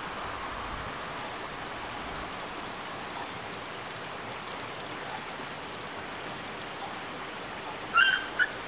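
Steady rush of running water in the background. About 8 s in, a Shiba Inu puppy gives two short, high yelps while play-fighting.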